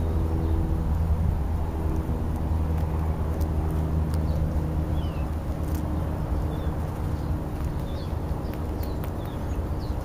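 A motor vehicle's engine running, a steady low hum that fades over the last few seconds, with a few faint short bird chirps over it.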